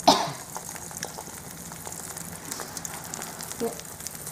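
Beaten egg sizzling and crackling in hot oil in a small metal wok, a steady frying hiss dotted with little pops. A brief loud scrape right at the start, from the spatula against the pan.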